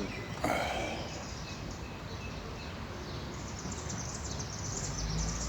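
Outdoor background noise with faint, high-pitched chirping repeated rapidly from about halfway through, and a low rumble rising near the end.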